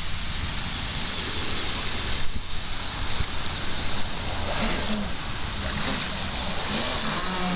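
Wind on the microphone over a steady hiss. In the last few seconds the RC boat's twin brushless outrunner motors spin up with a faint high whine, and water sprays as the boat pulls away.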